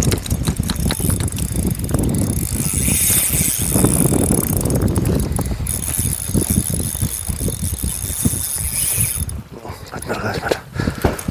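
Spinning reel being cranked under load, its gears and pawl clicking rapidly as a hooked Spanish mackerel is reeled in on a hard-bent rod.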